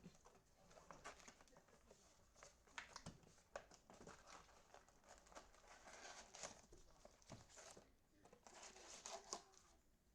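Faint crinkling and tearing of trading-card pack wrappers being opened by hand, with a scatter of short rustles and clicks as the cards are handled.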